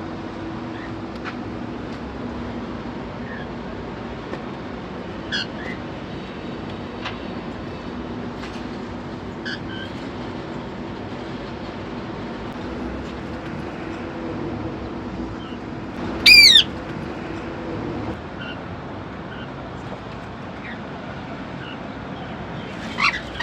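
Grey cockatiels giving scattered short chirps, with one loud call about sixteen seconds in and a few more calls near the end, over a steady low hum that stops about eighteen seconds in.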